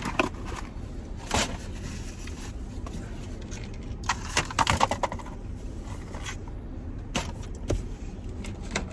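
Eating sounds inside a car: scattered short crinkles and clicks of food wrappers and chewing, busiest about halfway through, over a steady low rumble of the car.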